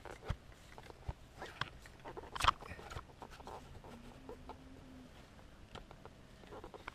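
Scattered light clicks and knocks from the unpowered paratrike's frame and fittings, with one sharper knock about two and a half seconds in and a brief low hum near the middle.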